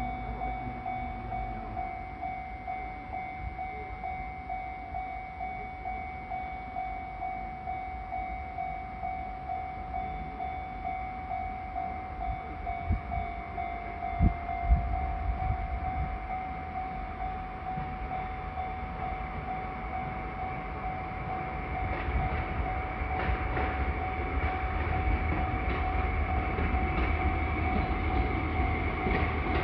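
Japanese railway level-crossing warning bell ringing, a repeating electronic ding. About two-thirds of the way through, a train comes into earshot and passes, a growing rumble with wheels clicking over the rail joints. A couple of dull thumps sound around the middle.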